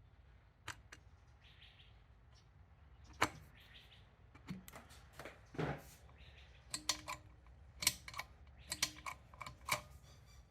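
Irregular sharp metal clicks and clinks of small parts and tools being handled while fitting the Triumph 500 gearbox outer cover, a few at first and coming thicker over the second half.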